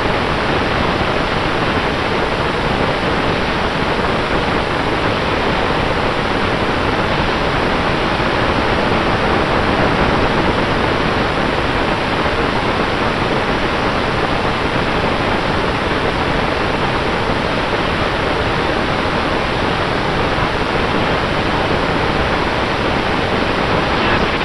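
Propellers and brushless motors of a 5-inch FPV quadcopter, heard through the onboard RunCam Split 2 camera's microphone as a loud, steady rushing hiss with a faint steady whine under it.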